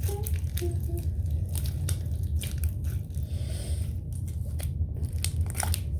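Slime being squished and worked by hand, with irregular small clicks and crackles, over a steady low rumble.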